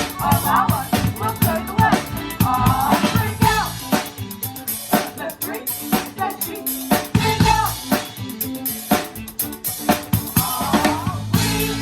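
Live band music with the drum kit up front: a steady kick and snare beat with rimshots and cymbals, under a bass line, and a melody line that bends in pitch comes and goes three times.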